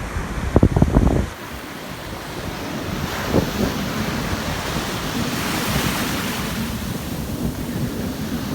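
Ocean surf washing on the beach, with wind buffeting the microphone. A loud rough rumble of wind in the first second or so, then the wash of the waves swells and fades.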